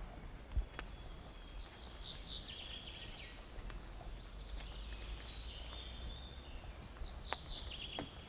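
A songbird singing two quick phrases of high notes, each ending in a lower run, about two seconds in and again near the end. Beneath it is a steady low rumble, with a dull thump just after the start and a few light clicks.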